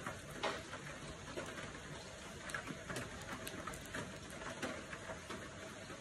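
Steady rain: an even hiss of rainfall with many small scattered drop ticks.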